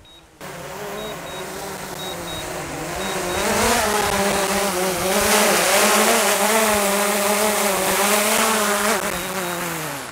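DJI Mini 4 Pro drone's propellers whining with a wavering pitch as it descends to land, growing louder as it comes in. Near the end the motors spin down, falling in pitch, and stop on touchdown. Faint short double beeps repeat throughout.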